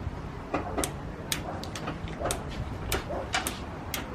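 Sharp, irregular clicking, about one or two clicks a second, from an electrical part in a Honda Integra's engine bay with no power reaching the ECU; the men hunting the click suspect a box in the bay.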